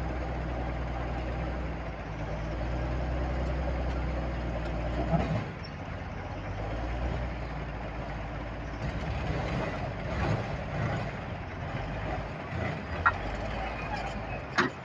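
Komatsu D155A-2 crawler bulldozer's diesel engine running, its steady note changing about five seconds in. A few sharp knocks stand out, the loudest near the end.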